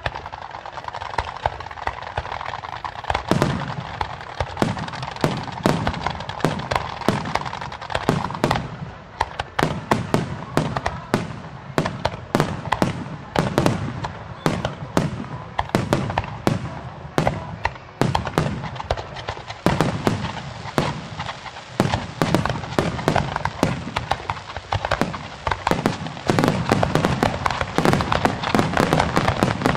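Fireworks display: an even hiss for the first few seconds, then aerial shells bursting one after another with sharp bangs about three seconds in. The bangs come faster and faster and thicken into a near-continuous barrage near the end.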